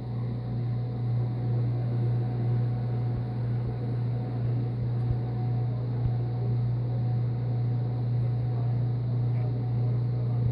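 A steady low hum, even in level throughout.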